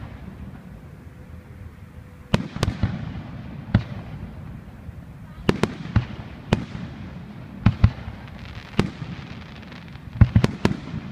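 Aerial fireworks bursting: about a dozen sharp bangs in irregular clusters, several in quick succession near the end, over a continuous low rumble.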